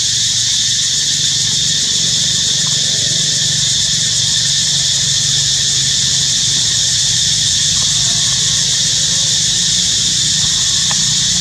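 A steady, unbroken, high-pitched insect chorus, typical of cicadas, over a low steady rumble.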